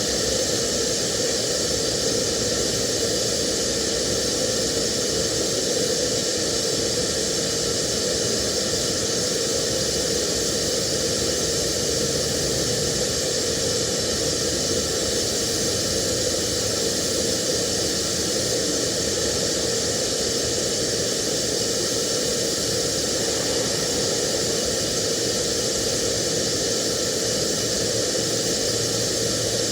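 TIG welding arc burning continuously: a steady hiss with a constant hum underneath.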